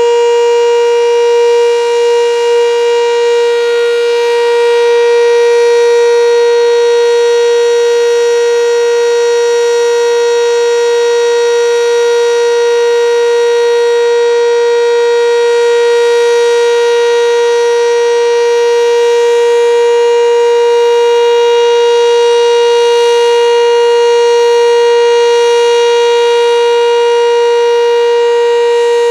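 Sentry 7V8 outdoor tornado warning siren sounding its Alert signal: one loud, steady tone held without rising or falling, with small swells in loudness.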